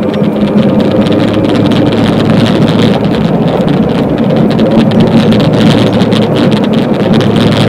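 Golf cart driving along a paved road: a steady low motor hum over continuous tyre, wind and rattle noise.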